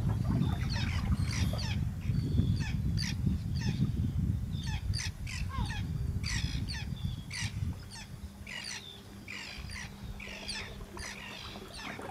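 Birds calling: many short calls in quick succession, over a low rumble that drops away about eight seconds in.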